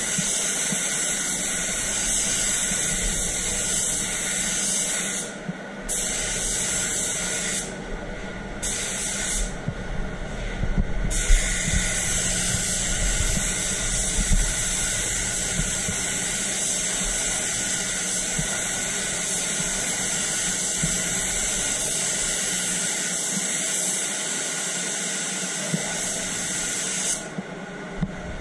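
Gravity-feed automotive spray gun hissing steadily as it sprays white direct-gloss paint onto a bumper, the hiss breaking off for a second or so a few times as the trigger is let go between passes, and again near the end.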